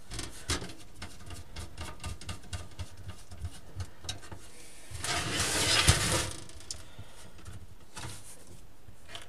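Light clicks and knocks of a motherboard being handled and pressed onto the standoffs of a steel PC case. About five seconds in, the case scrapes as it is slid and turned on a wooden table, ending in a sharp knock, then a few more small clicks.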